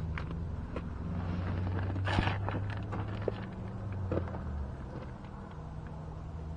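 Disposable work gloves being changed: rustling and light handling clicks, with a sharp snap about two seconds in, over a steady low hum.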